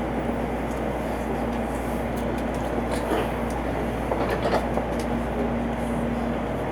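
Steady running noise inside a Tokaido Shinkansen car as the train pulls out of the station, with a faint hum that comes and goes and a few light knocks.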